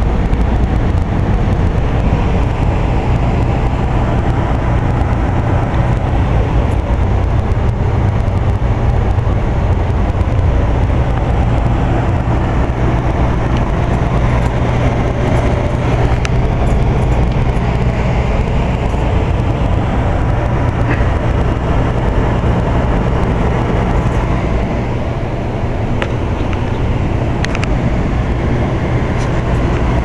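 Carrier 90% condensing gas furnace running: a steady low hum and rush of air from its blower and burner, with a few faint ticks. The noise drops slightly about 25 seconds in.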